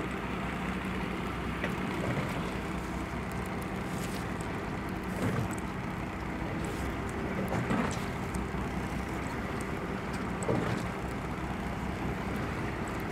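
Fishing boat's engine running with a steady low drone, with a few faint knocks on board.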